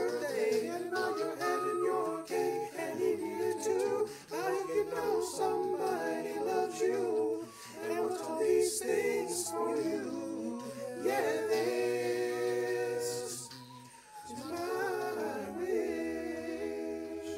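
Multitracked a cappella singing: one man's voice layered into several harmony parts. About eleven seconds in it holds a long chord, then sings a short last phrase that fades out.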